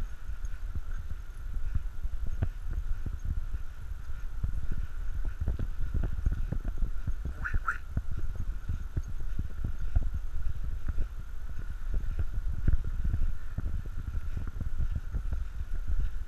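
Footsteps of someone walking on a dirt trail, an irregular run of low thuds, with a faint steady high hum behind them. A short, higher-pitched call comes about halfway through.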